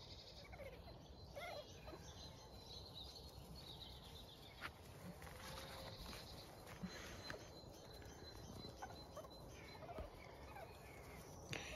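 Near silence with faint bird chirps now and then.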